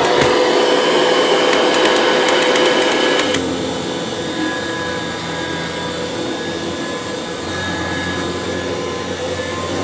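Kirby Classic III upright vacuum running with its power nozzle. There is a run of light ticks for the first three seconds or so; then the sound drops in level and settles to a steady hum.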